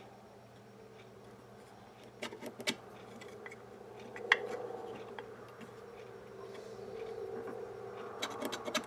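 Small clicks and taps as a metal jig and a pen are handled and set down on the bench, in a few clusters: a couple of clicks about two seconds in, a sharper one past four seconds, and several near the end. A steady faint hum runs under them.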